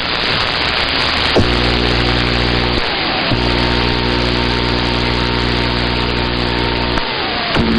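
CB radio receiver hissing with static, with a steady low buzzing hum that cuts in about a second and a half in, breaks off briefly, and stops near the end, as a station keys up an open carrier without speaking.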